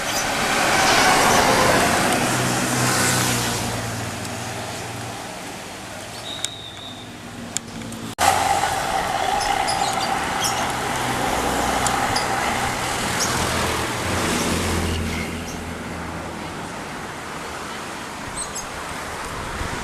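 Road traffic passing close by: heavy vehicles' engines and tyres swell up and fade as they go past. One passes in the first few seconds, and another starts abruptly about eight seconds in.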